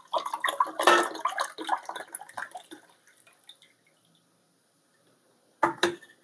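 Water poured from a clear plastic cylinder and a narrow-necked plastic bottle into two ceramic mugs, splashing for about three seconds and then dying away. A couple of sharp knocks near the end.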